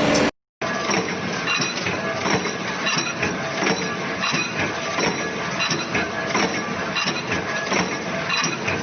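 A machine running with a steady, rapid, irregular clatter of clicks and knocks, starting just after a brief silence near the start.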